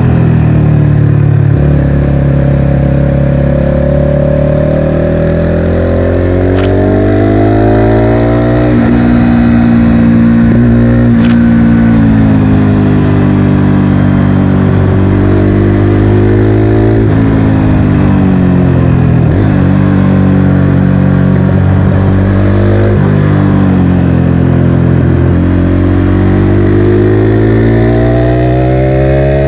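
Motorcycle engine running under way, its pitch climbing as it accelerates and dropping sharply at each gear change, several times over.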